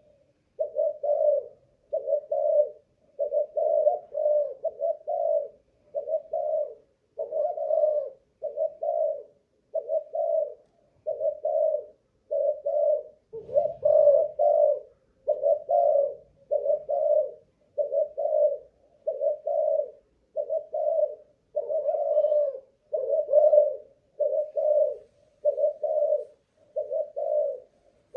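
Spotted dove (a Malaysian cooing-competition line) cooing on and on, short coos following each other at about one a second without a break: a sustained run that shows the bird's cooing stamina.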